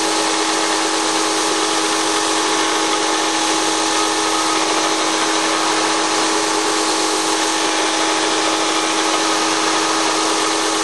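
Stationary belt sander running steadily: a constant motor hum under the hiss of the belt as the edges of a maple box are rounded against it.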